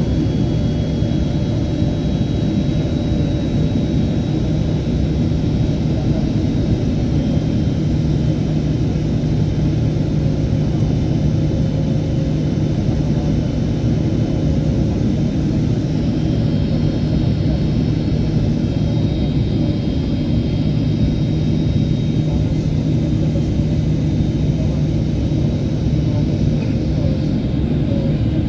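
Jet airliner cabin noise heard from a window seat: a steady rumble of engines and airflow with a constant low hum.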